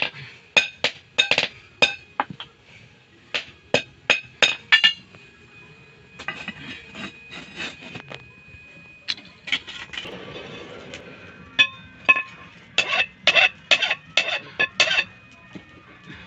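Hammer striking a steel rock-drill rod on an anvil during forging: quick runs of sharp, ringing metallic clinks, with a few seconds of lighter clatter and a lingering ring between the runs.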